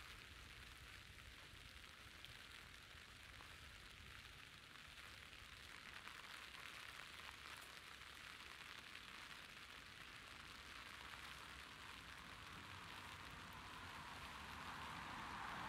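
Faint, steady rain falling on wet street surfaces: an even hiss that swells a little near the end.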